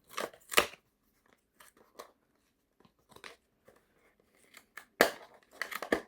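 Tight earbud packaging being prised open by hand: short, sharp crackles and scrapes, two near the start, a few faint ticks, then a louder cluster near the end.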